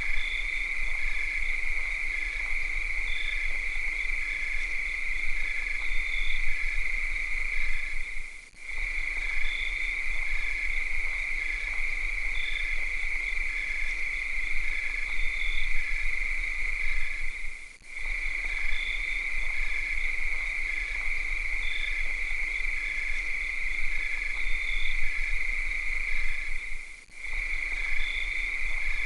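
A chorus of cicadas buzzing steadily at one high pitch at night. The buzz drops out for a moment three times, about nine seconds apart. Fainter short chirps repeat underneath at other pitches.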